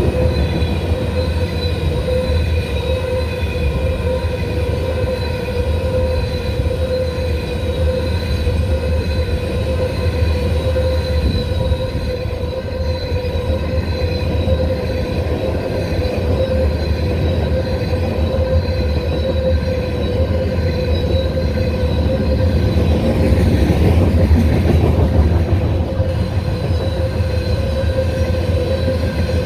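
Grain train's covered hopper cars rolling past close by: a heavy, steady rumble of steel wheels on rail with a constant high-pitched wheel squeal over it, swelling briefly about three-quarters of the way through.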